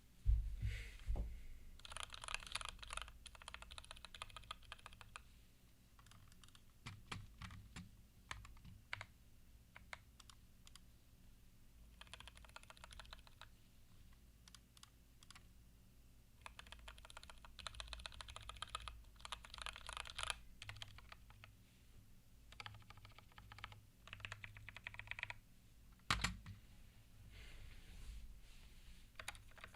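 Newly built mechanical keyboard with hand-lubed switches being typed on as a sound test: several bursts of fast typing with single key presses between them, and one louder knock near the end.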